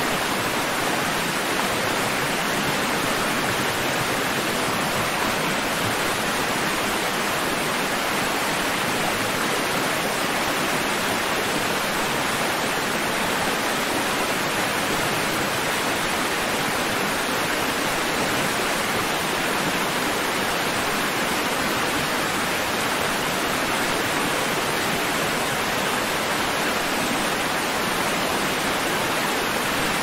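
Steady rushing-water white noise: an even, unchanging hiss with little deep rumble and no surging of waves.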